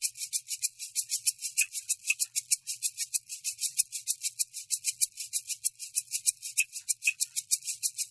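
Background music: a steady shaker rhythm, about five or six strokes a second.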